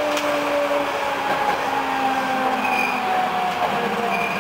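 Hankyu electric train's traction motors whining and steadily falling in pitch as it brakes into a station, over the rumble of wheels on rail, heard from inside the front car. A brief high squeal sounds near three seconds in.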